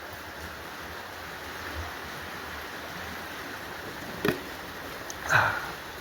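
River water running steadily, a wishy-washy rush with a little rumble to it. A sharp knock sounds about four seconds in, and a brief louder noise follows about a second later.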